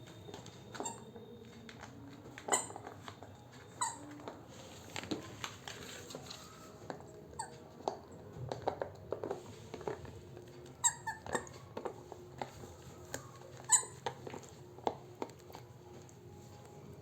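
A squeaky dog toy squeaking as an Indian Spitz puppy chews and bites it: many short squeaks at uneven intervals, with small clicks and rustles between them.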